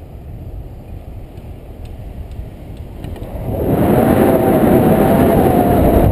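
Wind rushing over an action camera's microphone in paraglider flight: a low rumble that swells to a much louder rush about three and a half seconds in, with a faint wavering whistle in it.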